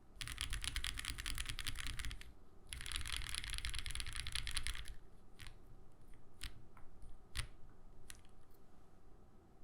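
Mechanical keyboard (Owlab Mr. Suit) with lubed 43 Studio OPBlack linear switches on a POM plate and GMK keycaps being typed on: two fast runs of rapid keystrokes, then a handful of single key presses spaced out over the last few seconds.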